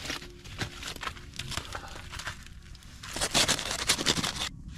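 Irregular crinkling and crunching from something being handled, louder and denser from about three seconds in and breaking off just before the end.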